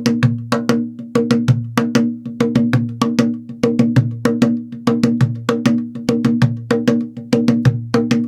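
Cajon played by hand in a steady rhythmic pattern, about four to five strokes a second, mixing deep bass strokes with sharper, higher slap strokes on the wooden box.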